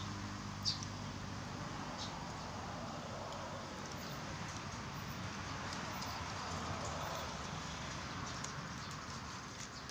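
Mak ngaew fruit being peeled and eaten by hand: a few sharp clicks as the rind is cracked and the fruit is chewed, over a steady hiss.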